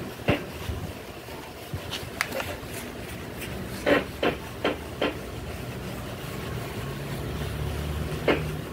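Handling noise: light knocks and taps as a hand moves over the paper and the phone is handled, with four taps in quick succession about four seconds in and one more near the end, over a low steady hum.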